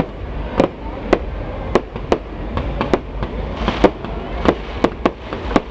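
Fireworks going off: an irregular run of sharp bangs, roughly two a second, over a steady low rumble.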